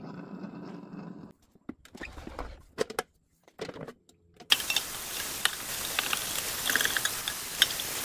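A Breville espresso machine's pump hums steadily during a descaling run and stops about a second in. A few clicks and knocks follow as the water tank is handled. From about halfway on, tap water runs steadily, splashing into a stainless steel sink.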